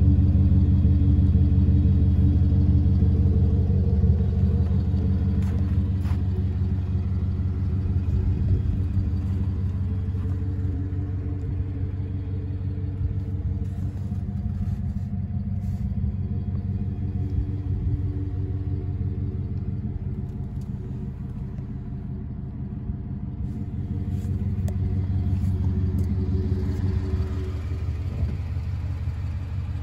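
2013 Ford F-150 FX4 pickup's engine idling steadily, a low even hum that is loudest at first, eases off over the next twenty seconds and swells again a few seconds before the end. A few light clicks are heard over it.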